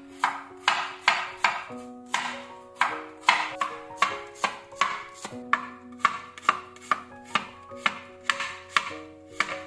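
Kitchen knife chopping carrot and slicing shallots on a wooden cutting board, quick even cuts about two to three a second, over soft background music.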